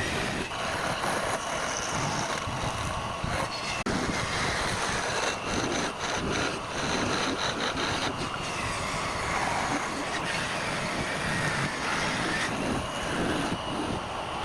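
Lathe running with a hand-held turning tool cutting into the spinning workpiece: a steady grinding noise with a faint wavering whine and scattered clicks.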